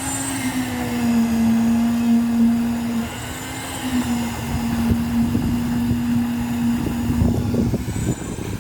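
A machine motor running steadily with a constant hum, with irregular clattering and scraping joining in from about halfway through.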